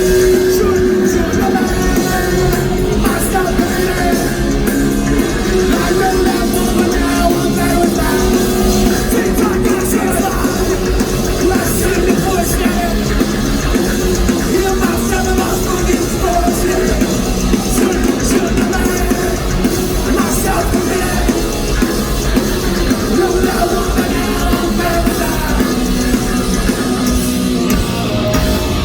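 Live punk rock band playing loud, with distorted electric guitars, driving drums and shouted vocals.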